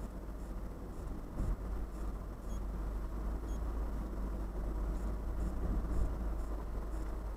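Car driving, heard from inside the cabin: a steady low rumble of engine and tyre noise, with a brief thump about a second and a half in and a slight rise in level a little later.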